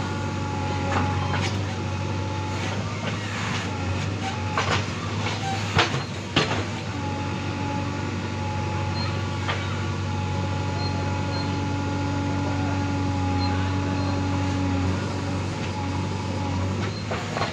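JCB 3DX backhoe loader's diesel engine running steadily under load as the backhoe arm drags mud, with a few sharp knocks from the machine, the loudest about six seconds in.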